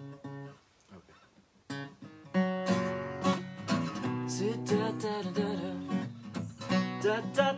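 Acoustic guitar: a few single picked notes, a short pause, then steady strummed chords from about two seconds in, the intro of a song.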